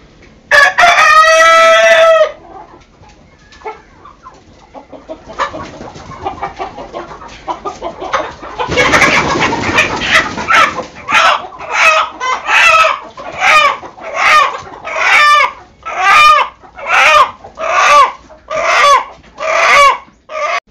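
A rooster crows once near the start. About halfway through there is a loud burst of flapping and scuffling as a rooster is grabbed, then the caught rooster gives a run of loud distress squawks, about one a second.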